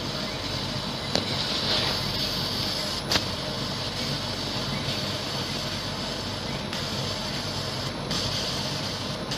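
Laser cutter running while it cuts wood: a steady machine hiss and hum, with a high whine that starts and stops every few seconds as the cutting head moves, and a couple of sharp clicks.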